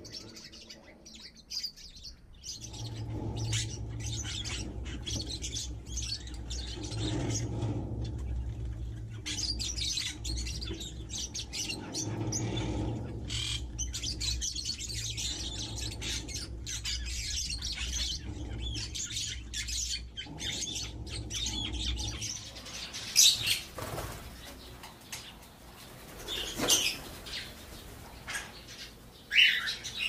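A flock of small aviary birds, budgerigars among them, chirping and chattering without pause, with a few louder, sharper calls in the last third. A low steady rumble lies underneath and stops about two-thirds of the way through.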